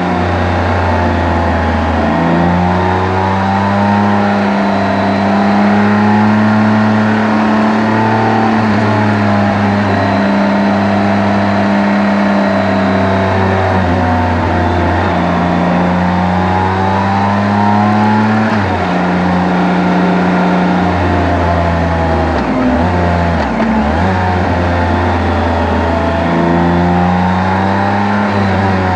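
Motorcycle engine and exhaust while riding, the engine note slowly rising and falling with the throttle, under a steady hiss of wind and road noise. The pitch dips sharply a few times about two-thirds of the way in.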